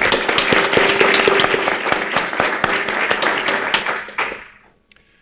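An audience applauding, many hands clapping together; the applause dies away about four seconds in.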